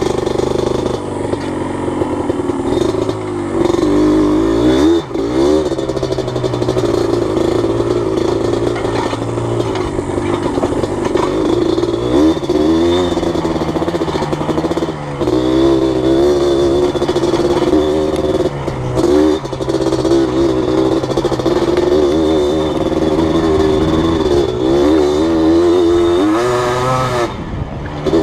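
Yamaha Blaster ATV's single-cylinder two-stroke engine running under way, its pitch rising and falling again and again as the throttle is opened and closed.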